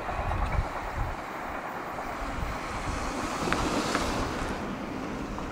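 Intermodal freight train cars rolling along the rails as the rear of the train moves away: a steady noise of wheels on track with a couple of faint clicks, mixed with wind on the microphone.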